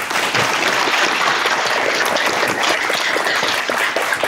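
Audience applauding: steady clapping from many hands.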